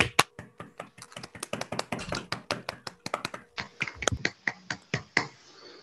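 Applause over a video call: scattered sharp hand claps from a few people, several a second and unevenly spaced, thinning out and stopping near the end.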